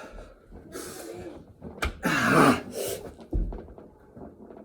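A person doing burpees: thuds of the body landing on the floor, and loud, hard breaths between them, loudest just after a thud about two seconds in. A second low thud comes about a second later.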